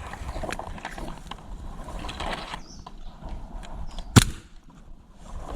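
Assorted light mechanical clicks and rattles, with one sharp crack about four seconds in.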